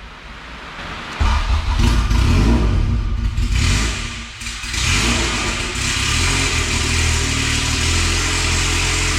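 Honda B18 four-cylinder engine starting and running on the throttle pedal: it won't idle on its own until the throttle body is cracked open. The engine speed sags about four seconds in, then picks back up and holds steady.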